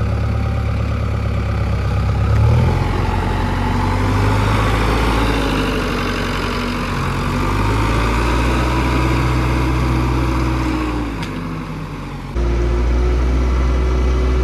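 Diesel engine of a JCB backhoe loader running, its pitch rising and falling as the engine speed changes, with a sudden step up in loudness near the end.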